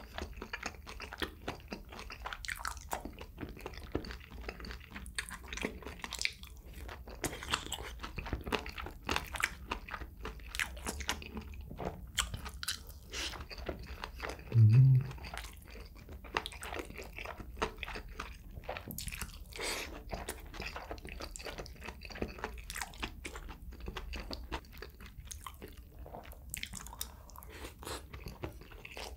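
Close-miked chewing and crunching of boneless spicy chicken feet, with many small crunches throughout. About halfway through comes a short, low, hum-like sound, the loudest moment.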